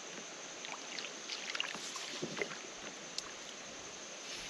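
Light splashing and dripping of water at the side of a kayak while a small bluegill is brought in on a fly rod, with scattered soft splashes and ticks in the middle couple of seconds.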